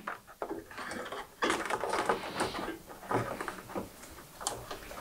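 Irregular rustling and light scraping as a wiring harness is pulled and fed behind a pickup truck's grille, the wire rubbing against plastic trim and metal, with a few small clicks.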